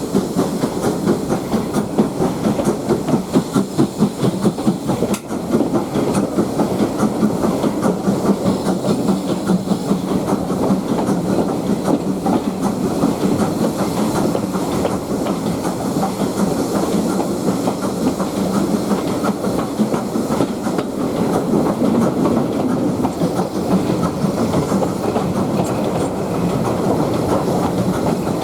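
A steam-hauled heritage train running along the line, heard from on board: wheels clicking over rail joints with a continuous rumble and some hiss.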